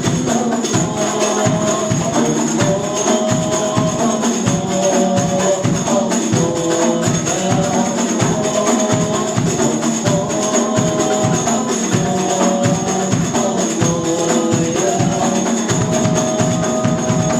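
Sholawat music from frame drums and jingling tambourine keeping a steady beat, with a melody carried over it.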